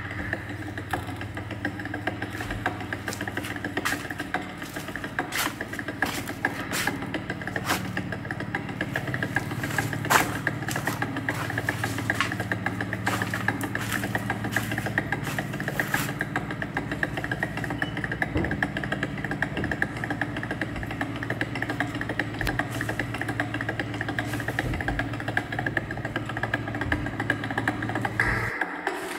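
A motor or engine running steadily with a low hum, with frequent clicks and rattles over it. It cuts off abruptly near the end.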